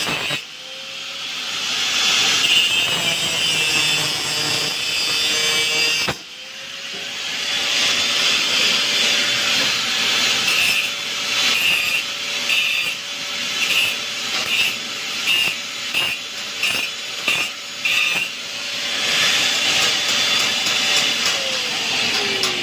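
A handheld power tool working on steel grille bars. A steady motor whine runs under a gritty hiss, cuts out briefly about six seconds in and starts again, pulses in regular strokes through the middle, and winds down in pitch near the end.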